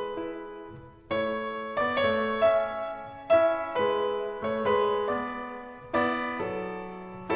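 Background piano music: slow chords and melody notes, each struck and left to fade before the next.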